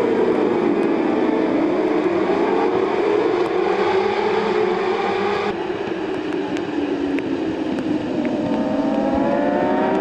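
Many racing motorcycle engines running together, their pitch rising and falling. It changes abruptly about halfway through, and near the end the engines climb steadily in pitch as a pack of bikes accelerates.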